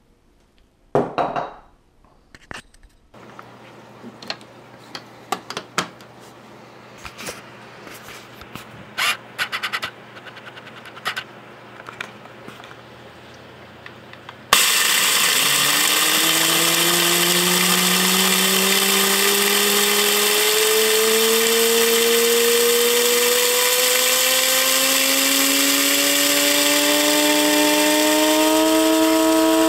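Electric coffee grinder motor starting abruptly about halfway through and then running loudly and steadily, its whine climbing slowly in pitch. Before it start, there are scattered light clicks and rattles.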